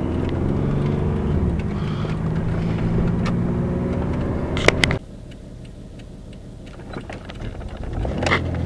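Nissan 300ZX (Z32) V6 idling low and unevenly. Its pitch dips and recovers about a second and a half in, a wandering idle that the owner puts down to a vacuum leak and suspects comes from a badly fitted plenum gasket. A couple of sharp clicks come about five seconds in, after which the engine is much quieter until it comes back up near the end.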